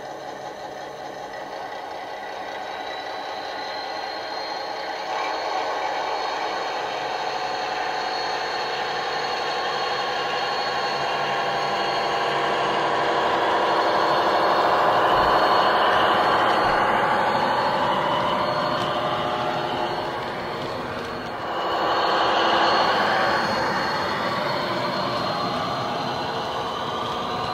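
DCC sound decoder in a model Class 22 diesel-hydraulic locomotive playing its diesel engine running under power, with a thin, steady, high turbo whistle over it, through the model's small speaker. It grows louder as the train comes closer, dips briefly about two-thirds of the way through, then picks up again.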